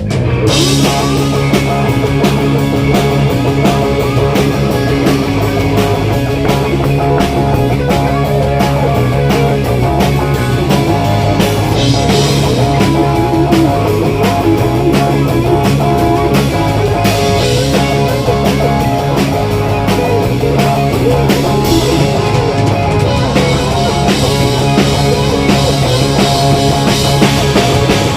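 Rock band playing an instrumental passage with guitar and a drum kit, with no singing.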